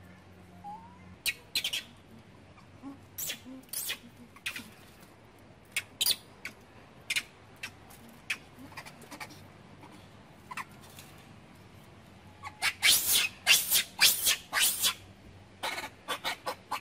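Short, sharp, high-pitched chirps and squeaks, scattered singly at first, then coming in a loud, rapid flurry about three-quarters of the way through.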